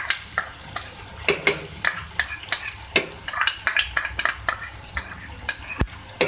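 Chicken frying in oil in a karahi, with sizzling and irregular crackling, and a metal spoon clinking and scraping against the pan as spoonfuls of yogurt go in and are stirred.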